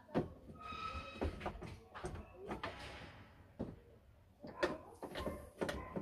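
Irregular metallic clicks and knocks from a Hyundai Starex sliding door's latch and handle mechanism, worked by hand with the inner trim panel off, with a brief high tone about a second in.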